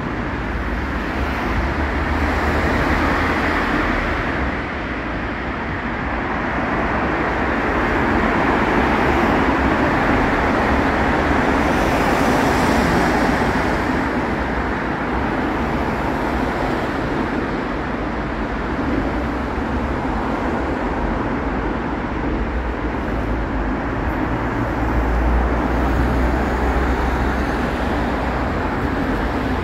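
Steady city road traffic noise, swelling and easing now and then as cars pass.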